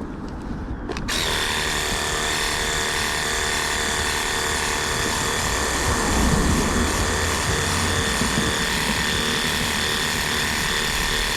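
Pressure washer switching on about a second in and running steadily: a motor whine with a couple of high steady tones over a constant noise, slightly louder around the middle.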